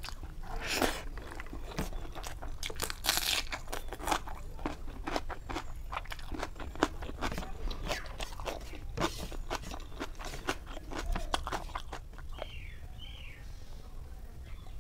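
Close-up eating sounds of a person eating rice by hand: wet chewing, lip smacks and small clicks, with fingers pressing rice on a ceramic plate.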